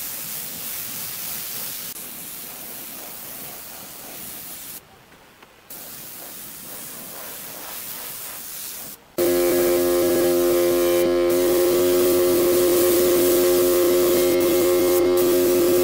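Steady hiss of a gravity-feed spray gun spraying finish onto wood, briefly dropping out about five seconds in. From about nine seconds in it gets louder, with the steady hum of a small portable air compressor running under the spray hiss.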